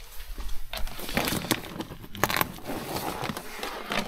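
Rustling and crackling of a bundle of dash cam wiring being handled and pulled free from behind plastic trim, with a few sharp clicks and knocks in the middle.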